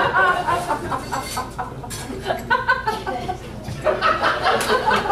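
Audience in a comedy club laughing, many voices chuckling and laughing together.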